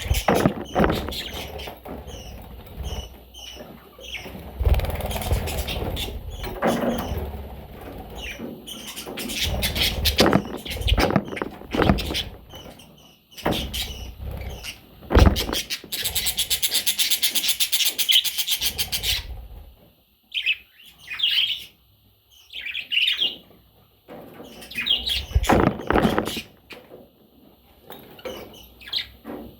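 Baby budgerigars chirping and squeaking, mixed with frequent knocks and scrapes. About halfway through, a rapid buzzing trill lasts about three seconds.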